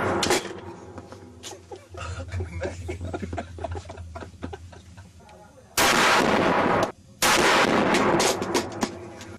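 Loud gunfire: a blast ends just after the start, then clicks and handling noise for several seconds, then two more blasts of about a second each in the last few seconds, the second fading out.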